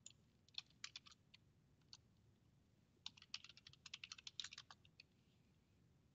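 Faint computer keyboard typing: a few scattered keystrokes, then a quick run of keystrokes from about three to five seconds in.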